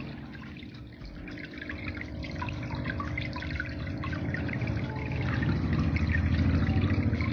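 Water trickling and dripping down a homemade aquarium waterfall, with a low steady hum underneath that grows louder about five seconds in.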